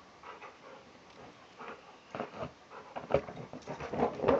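Half-Rottweiler, half-Tibetan Mastiff dog playing with a blanket: short dog noises and the rustle of the blanket as he paws and tugs at it. They come in scattered bursts that grow louder in the second half.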